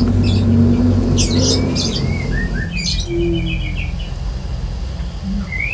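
King cobra growling: a low, breathy hiss that dies away about halfway through. Small birds chirp and whistle throughout.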